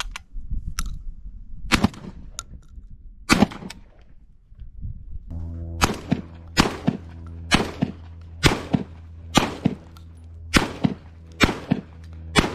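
A few sharp clicks as 12-gauge shells are loaded into a Citadel Boss Hog shotgun, then eight shots fired in quick succession, about a second apart, with 1100 fps loads.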